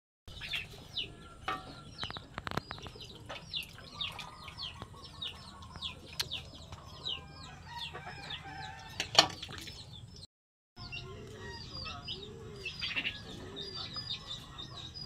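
Chickens calling nearby: a long run of short, high, falling peeps, a couple each second, with a few low clucks around twelve to thirteen seconds in. A sharp knock about nine seconds in is the loudest sound, and the sound drops out for half a second just after ten seconds.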